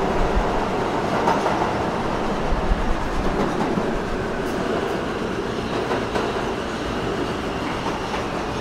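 New York City subway train running, heard from inside the car: a steady rumble and rattle of wheels on the rails, with a few louder jolts in the first three seconds, easing slightly toward the end.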